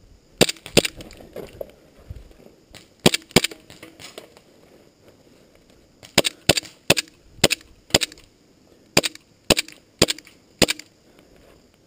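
Tokyo Marui Glock 17 airsoft pistol firing sharp single shots: a pair near the start, another pair about three seconds in, then a string of about nine shots, roughly two a second, from about six seconds in.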